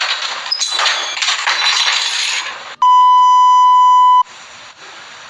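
A loud, noisy stretch of sound lasting about two and a half seconds. Then a loud steady beep tone, one pitch held for about a second and a half, cuts off suddenly and leaves a low hiss.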